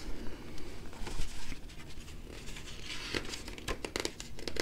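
Paper pages of a picture book being handled and turned: a soft rustle, then a quick run of sharp paper crinkles and flaps near the end.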